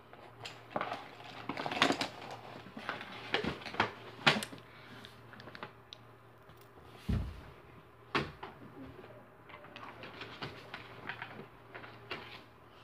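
Small objects being handled at close range: irregular clicks, taps and rustles, busiest in the first few seconds, with a dull thump about seven seconds in.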